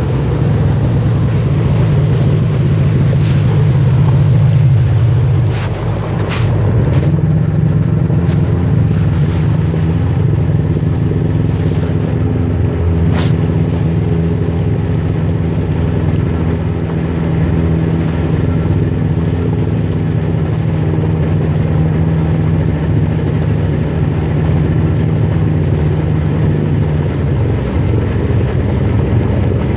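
Sea-Doo personal watercraft engine running steadily under way. Its drone eases briefly about six seconds in and then picks up again, with a few sharp knocks over the first half.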